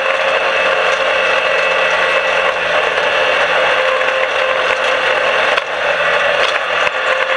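Dirt-track race car's engine running hard at racing speed, heard from inside the cockpit: loud and steady, with a constant high drone over a dense mechanical clatter. The sound dips briefly about five and a half seconds in.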